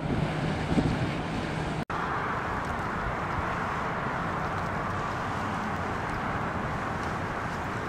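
Steady road and engine noise of a car driving, with wind buffeting the microphone in the first two seconds. The sound cuts out for an instant just before two seconds in.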